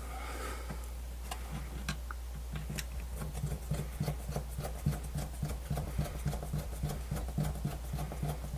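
Small clicks and rubbing of plastic parts being handled and pressed into a portable radio's case, the clicks coming several a second in the second half, over a steady low hum.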